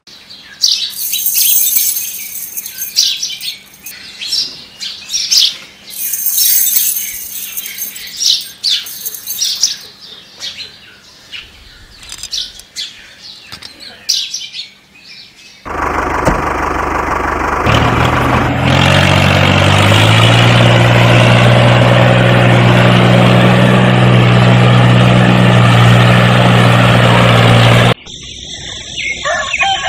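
Small birds chirping and tweeting for about the first fifteen seconds. Then an engine drone sets in, steps up in pitch about two seconds later, and runs steadily and loudly before cutting off suddenly near the end. A rooster begins crowing in the last moments.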